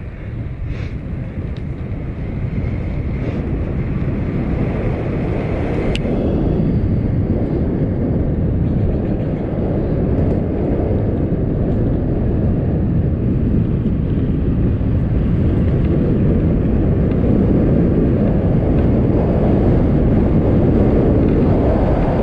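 Wind rushing over the microphone and the tyres rolling on cracked pavement as a mountain bike descends, growing steadily louder as speed builds. A sharp click about six seconds in.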